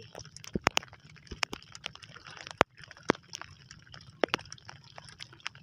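Irregular sharp clicks and taps, bunched a few to the second at times, over a low steady rumble.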